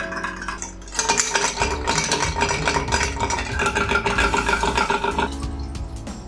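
A long bar spoon stirring ice and whisky in a highball glass: rapid, continuous clinking of ice against glass, starting about a second in and stopping about five seconds in. This is the stir that chills the whisky before the soda goes in.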